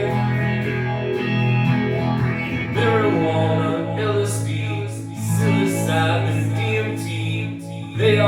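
A band playing a song live, with guitar to the fore and steady low bass notes underneath.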